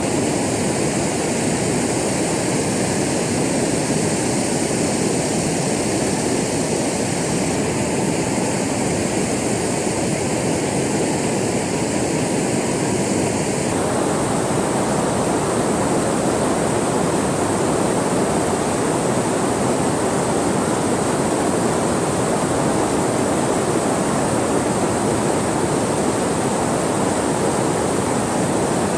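Steady, loud rushing of flowing river water.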